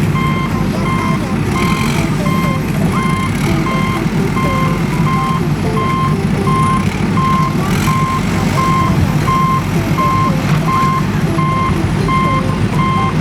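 Reversing alarm beeping steadily, about two beeps a second, over a steady low rumble.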